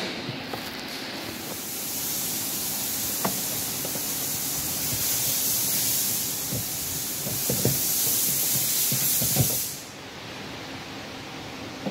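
A steady spraying hiss that starts about a second in, lasts about nine seconds and cuts off suddenly, with a few light knocks underneath.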